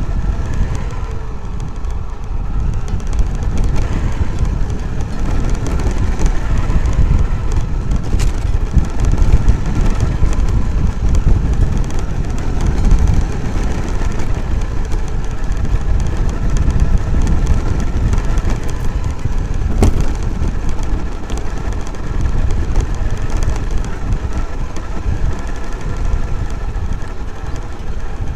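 Onboard audio of a Traxxas X-Maxx electric RC monster truck driving over rough grass and gravel: a heavy, uneven rumble of the chassis and tyres jolting over the ground, with a faint steady whine from the brushless drivetrain and a couple of sharp clicks.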